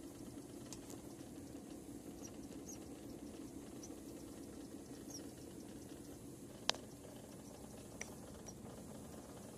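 Faint, short, high-pitched mouse-like chirps coming irregularly from a Toyota 4Runner, over a steady low hum; the cause of the squeak is unidentified. A sharp click sounds about two-thirds of the way through, and a smaller one follows about a second later.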